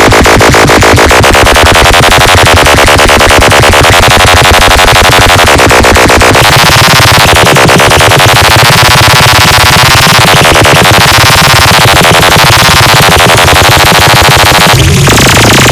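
Electronic DJ track played at full volume, heavily distorted. It has a fast-pulsing buzzy synth whose tone sweeps up and down in waves. The heavy bass drops back in near the end.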